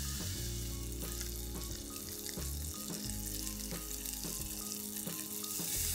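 Chicken pieces and quartered button mushrooms sizzling in butter in a stainless steel frying pan on high heat, browning, under soft background music.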